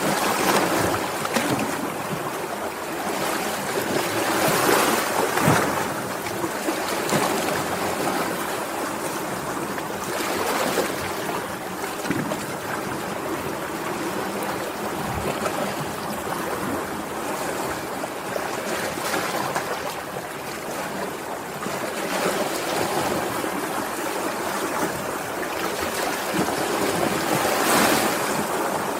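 Sea waves washing in, a continuous wash of surf that swells several times, about every few seconds, as waves break and draw back.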